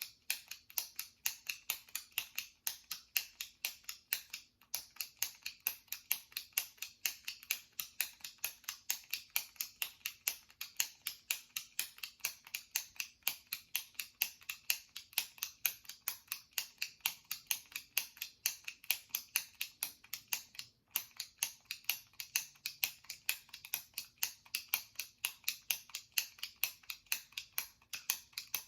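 The push button of a jumbo retractable pen is clicked over and over in a steady rhythm, about four clicks a second, with two brief breaks.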